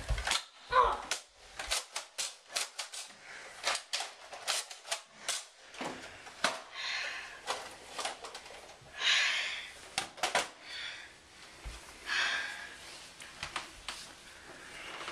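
A rapid, irregular series of sharp clicks and knocks, broken by three short hissing bursts.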